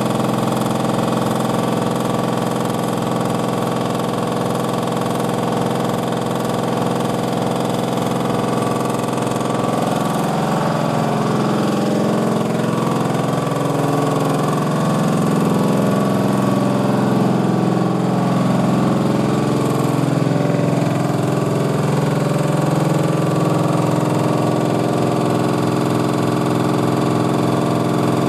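Jackhammer hammering continuously with a rapid, even beat over a machine engine's drone, loud and steady. From about a third of the way in, the hammering turns rougher and heavier for several seconds, then settles again.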